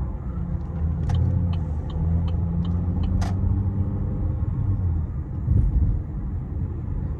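Chevrolet Malibu engine and road noise heard inside the cabin, a steady low drone that swells and eases a little as the car moves in slow traffic, with a couple of short clicks.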